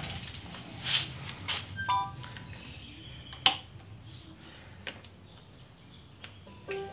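A few sharp clicks and light handling noise from wiring connectors being handled, with a short electronic beep about two seconds in. Music with mallet percussion starts at the very end.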